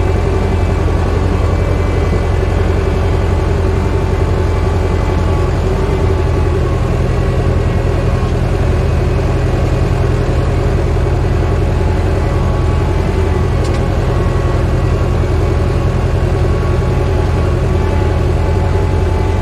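Zetor 4011 tractor's four-cylinder diesel engine running steadily at an even speed, a low drone that holds its level throughout.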